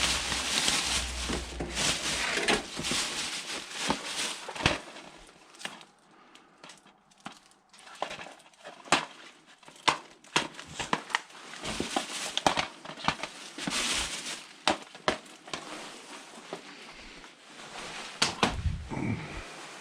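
Rummaging through rubbish by hand: plastic and packaging rustling and crinkling, with irregular clicks and knocks as items are shifted about.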